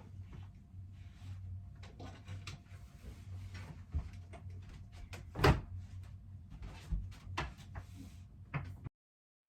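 Scattered knocks, clicks and light clatter of things being handled and moved while a room's shelves are cleared into storage bins, with one louder knock about halfway through. The sound cuts off suddenly shortly before the end.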